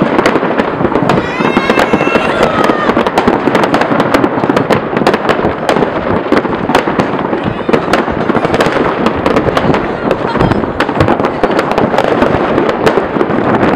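Many fireworks going off at once across a neighbourhood: a dense, unbroken crackle of bangs from aerial shells and firecrackers, with a rocket's whistle in the first few seconds.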